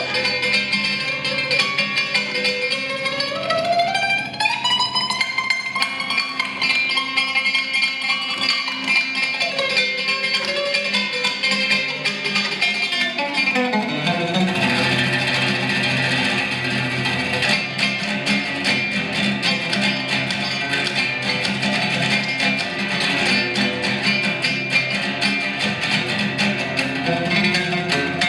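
Oud music: a plucked melody with sliding notes, turning fuller and denser about halfway through as more instruments come in.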